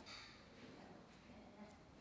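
Near silence: faint room tone, with a soft brief rustle at the very start.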